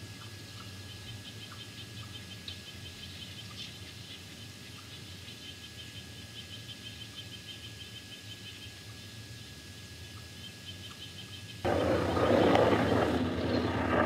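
Outdoor ambience from a forest camera microphone: a fast, even series of high chirps over a faint steady hum and thin whine. About twelve seconds in it gives way suddenly to a much louder rushing rumble.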